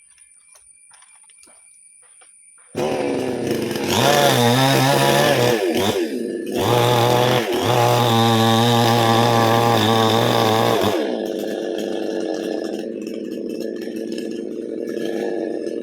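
Chainsaw engine that comes in suddenly about three seconds in, is revved at full throttle twice with brief dips, then settles to a lower, steady run near the end.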